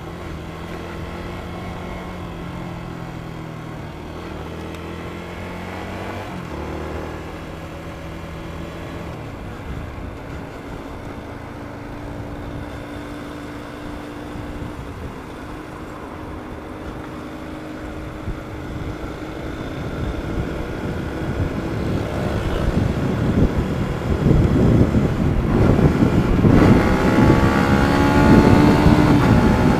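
Yamaha 150 cc underbone motorcycle with its stock exhaust, the single-cylinder engine running steadily at modest revs while riding, then accelerating in the last third, its note climbing and growing louder as wind noise rises.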